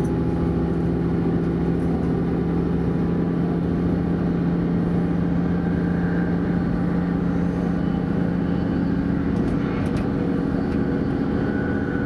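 DB class 641 'Walfisch' diesel railcar running at speed, heard from inside the passenger cabin: a steady engine drone over the rumble of wheels on track.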